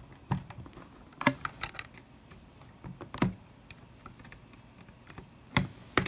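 Irregular sharp clicks and taps of a screwdriver tip and small plastic parts as a connector inside a Mac mini is pried loose.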